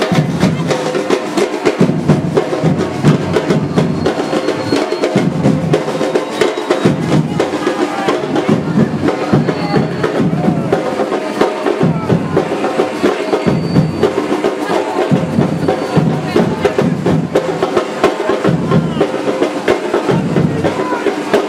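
Live festival music with drums and percussion playing a steady rhythm for a street dance, over the voices of a crowd.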